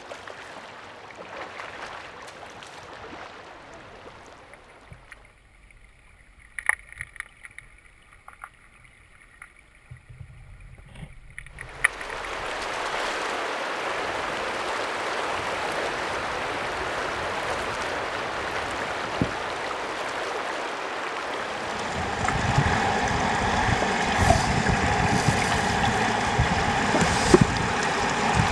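Shallow river water running over gravel, a steady rushing noise that dips into a quieter stretch with a few sharp clicks, then swells again. In the last few seconds it turns louder and deeper, the rumble of flowing water heard underwater.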